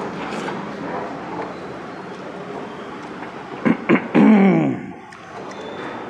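Dining-room background noise, with two sharp clicks about four seconds in followed by a short vocal sound falling in pitch.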